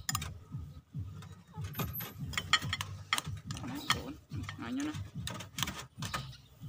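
A metal spoon clicking and scraping against a small ceramic bowl in quick, irregular taps as ingredients are stirred and scooped.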